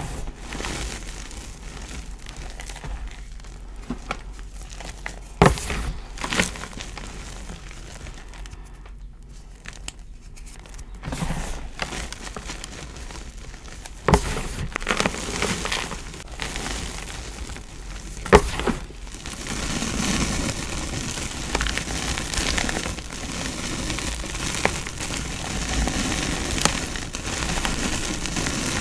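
Hands crushing and pressing dyed gym chalk in a tray: crunchy, crinkly crumbling of the powder, with a few sharp pats. The crunching grows denser and louder in the last third.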